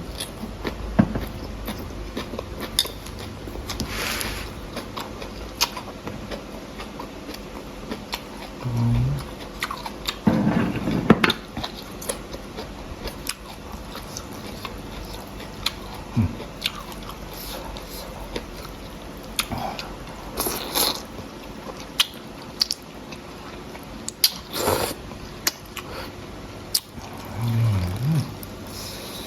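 Close-up eating sounds of a man chewing noodle soup with oil-fried chilies: wet chewing and small utensil clicks, with a few brief louder rushes and a couple of short low hums.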